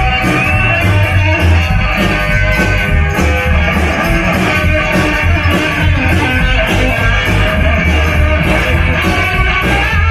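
Live rock band playing an instrumental passage: electric guitar over bass and drums with a steady beat.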